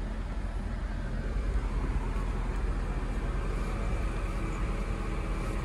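Honda Mobilio idling steadily with its air conditioning running: an even low hum with a soft fan-like hiss.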